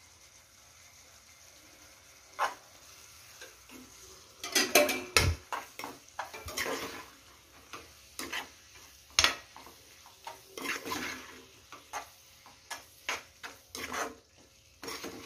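Metal spatula stirring mushroom fry in a non-stick kadai: scraping and knocking against the pan. A single knock comes about two and a half seconds in, and a busy run of scrapes and clacks follows from about four and a half seconds on.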